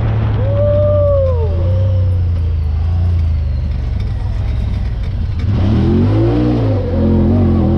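A vehicle engine running steadily, with a brief rise and fall in pitch about half a second in and a wavering pitch from about five and a half seconds in.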